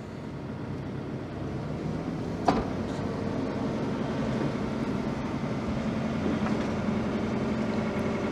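Hitachi 75 mini excavator's diesel engine running steadily at high idle as the machine is tracked along, growing slightly louder, with one sharp knock about two and a half seconds in.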